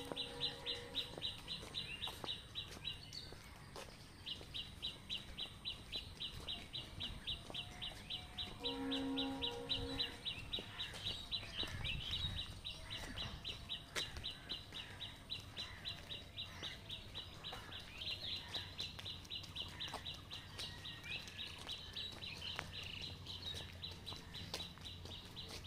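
Outdoor ambience carried by a high-pitched animal call pulsing rapidly and evenly, several pulses a second, with a short break about three seconds in. A brief steady pitched tone sounds around nine seconds in.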